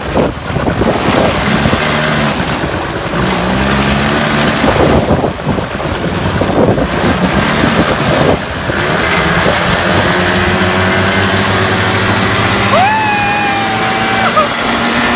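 Small motorbike engine running under two riders, its pitch rising and falling with the throttle for the first half, then holding steady, with wind on the microphone. A higher drawn-out tone rises, holds and drops near the end.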